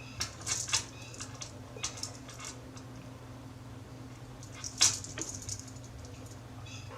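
Faint clicks and taps of the stainless steel watch being handled, a few in quick groups and the loudest near five seconds in, over a steady low hum.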